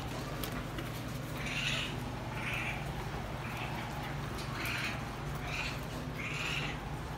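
Wolf-hybrid pup making short breathy play noises while wrestling, about one every second, over a steady low hum.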